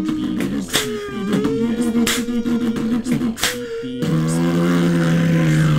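Layered a cappella voices: beatboxed mouth-percussion hits about every two-thirds of a second under held vocal notes. About four seconds in the beat stops and the voices hold a layered chord.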